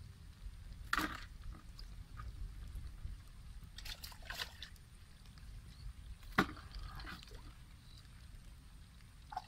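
Water sloshing and splashing, with sharp splashes about a second in, around four seconds and around six and a half seconds, over a low rumble.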